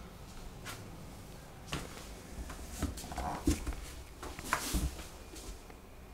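A wooden cabinet door being handled and swung open on its metal hinges, giving a few sharp clicks and knocks. The loudest come about three and a half and four and a half seconds in.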